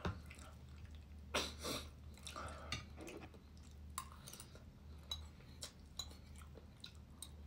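A person eating: chewing and mouth noises with small scattered clicks of a metal spoon against a ceramic bowl, a louder noisy burst about one and a half seconds in, over a low steady hum.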